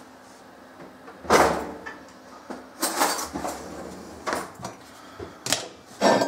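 Kitchen handling noises: a loud knock and clatter about a second in, then several more knocks and rattles of things being handled.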